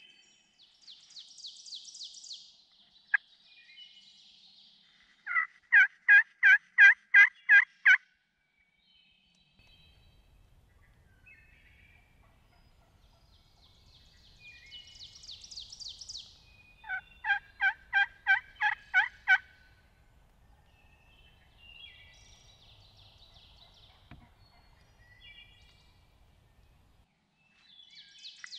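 A hand-held turkey call worked in two loud series of about eight evenly spaced yelps, roughly three a second, close to the microphone. Between them come fainter, higher rattling turkey calls from wild turkeys farther off, and a single sharp click about three seconds in.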